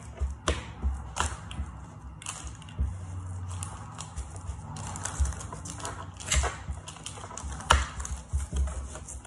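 The back of a tablespoon pressing and tapping a sticky biscuit-crumb base down into a paper-lined baking tin: irregular knocks, clicks and scrapes of spoon against crumbs and tin, with a louder knock near the end.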